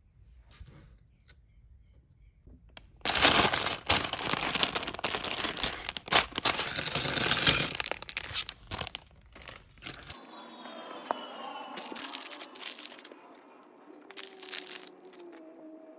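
Thin plastic bag crinkling loudly as it is torn open and a pile of small plastic building bricks is shaken out onto a table, starting about three seconds in and lasting about five seconds. Then quieter scattered clicks of the plastic bricks being handled and pressed together.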